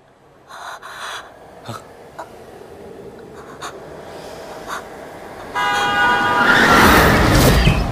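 A woman's panting, straining breaths as she tries and fails to get words out. About five and a half seconds in, a sudden steady car-horn blast starts, with a loud rushing noise swelling under it.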